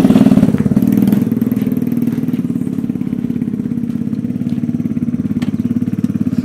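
Small 125cc single-cylinder mini bike engine running close by, a little louder in the first second, then settling to a steady idle.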